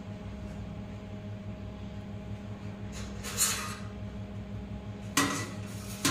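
Black rubber glazing gasket being pressed and worked into the channel of an aluminium window frame around a glass pane: a short rubbing scrape a little past halfway and two sharper knocks near the end, over a steady low hum.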